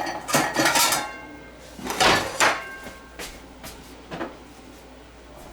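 Dishes or utensils clattering as they are handled, in a few short bursts, the loudest about two seconds in, with lighter knocks after.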